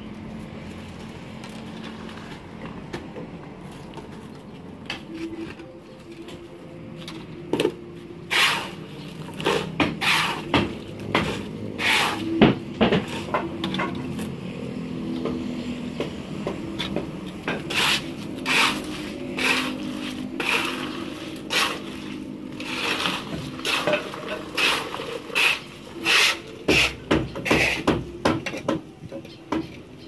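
Steel shovel scraping and scooping across a concrete floor while mixing mortar. The strokes are sharp and irregular, about one to two a second, starting about eight seconds in.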